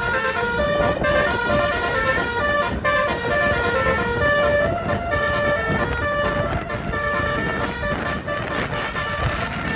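Bus 'telolet' basuri musical horn playing a tune: a run of held notes stepping up and down in pitch, over a low rumble.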